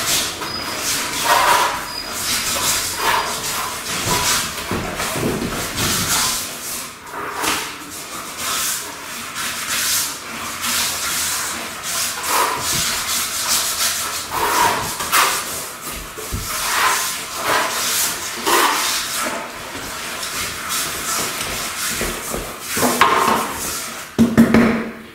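Notched trowel scraping and spreading wet self-levelling compound across a concrete screed floor, in repeated uneven strokes about a second apart. A louder rustle comes near the end.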